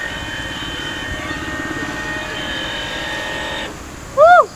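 Two small submersible motors driving a large RC raft whine steadily under remote control, then cut off abruptly about three-quarters of the way through as it reaches the bank. Just before the end comes a short, loud call that rises and falls in pitch.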